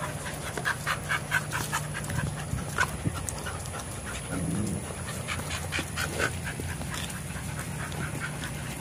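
Dogs panting in quick, rhythmic breaths, about three to four a second in runs, over a steady low hum.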